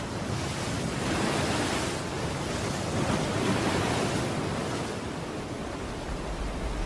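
A wash of rushing, surf-like noise in a break of the background music mashup, swelling and easing in slow waves and building toward the end as a lead-in back to the beat.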